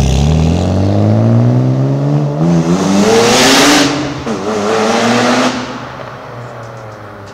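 1997 Mitsubishi Galant VR-4's twin-turbo V6 on a decatted 2.5-inch JapCan exhaust backbox accelerating hard away. The engine note rises, drops back at gear changes about two and a half and four seconds in, then fades into the distance.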